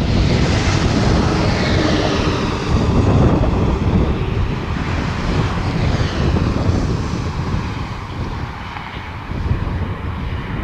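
Small petrol generator engine running steadily and loudly, a continuous mechanical drone with slow sweeping changes in its higher tones.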